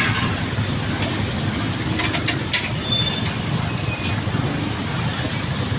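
Street traffic noise: motor vehicles running along the road, a steady low rumble with a few short clicks and brief high squeaks partway through.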